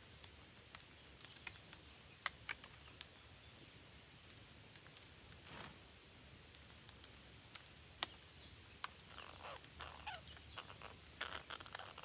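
Faint, scattered sharp clicks, then a cluster of short chirping calls from a flock of green parrots a few seconds before the end.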